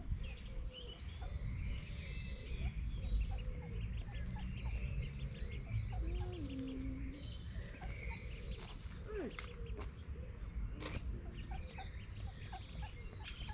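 Female mallard duck giving short low quacking calls, with high bird chirps around it and a steady low rumble underneath. A few sharp clicks come about two thirds of the way through.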